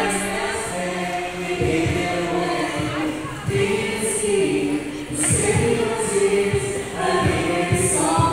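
A small group of carol singers singing together in harmony into microphones, amplified through a loudspeaker, with held notes that change every second or so.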